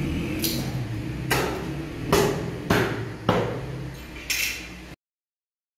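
Butcher's cleaver chopping a slab of beef against a wooden chopping block: about six sharp chops in four seconds over a steady low hum, then the sound cuts out suddenly for about a second near the end.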